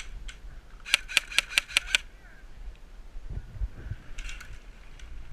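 Airsoft gun firing a quick string of about six sharp shots, followed a couple of seconds later by a fainter short burst.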